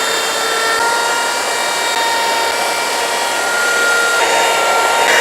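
Electric power tool running steadily, a loud motor whine over a rushing noise.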